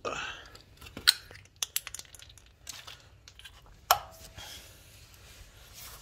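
Plastic Tesla wheel centre cap clicking and knocking against the wheel hub as it is pushed into place, a handful of sharp clicks. It is not easy to pop in.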